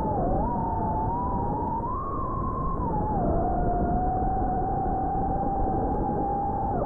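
FPV quadcopter's motors whining, the pitch rising and dipping with the throttle, then holding fairly level from about halfway before dropping away suddenly at the end.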